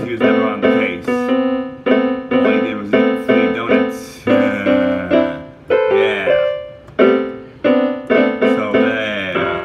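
Piano music: repeated struck chords that ring and fade, with no voice over them.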